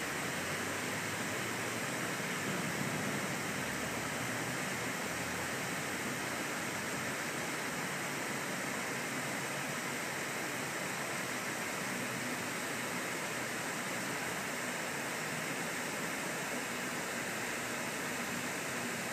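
River water pouring steadily over a curved dam spillway, an unbroken rushing.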